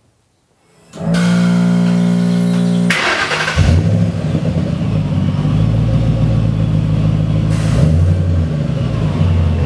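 A 2010 Mustang GT's supercharged 4.6-litre V8 is started through its MagnaFlow exhaust. A steady starter whine lasts about two seconds, the engine catches about three seconds in, and it then settles into a loud, low exhaust rumble at idle.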